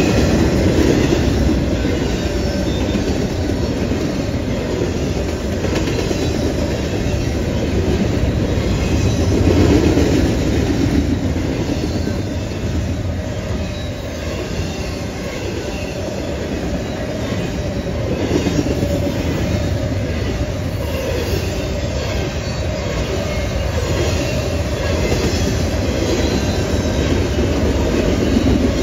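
Norfolk Southern double-stack intermodal freight cars rolling steadily past, with a continuous low rumble of wheels on rail and clatter over the joints.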